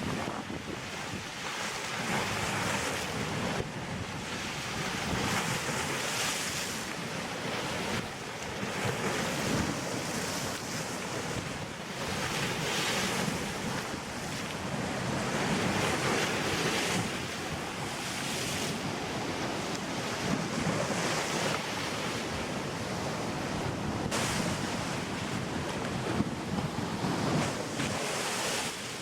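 Storm waves breaking on a lakeshore in strong gusty wind, the surf surging again and again, with wind buffeting the microphone.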